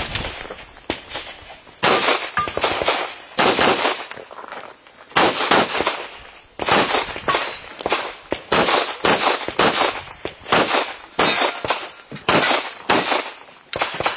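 Handgun shots fired in rapid strings of two to four, about two dozen in all, with short pauses between the strings, during an IPSC practical shooting course of fire.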